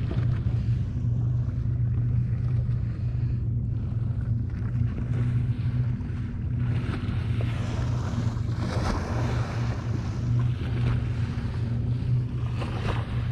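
Motorboat engine idling close by, a steady low hum, with wind and water hiss growing louder in the second half.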